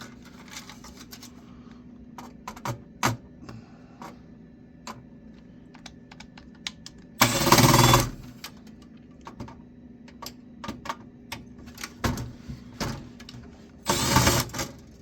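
Metal and plastic computer parts clicking and clattering as an old desktop computer is taken apart by hand, with two brief louder bursts of noise, about seven and fourteen seconds in.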